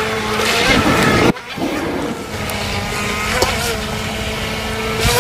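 Electric motor of a small high-speed RC speedboat whining steadily at speed, with the hiss of water spray from the hull. The sound drops out abruptly a little over a second in, then the whine resumes.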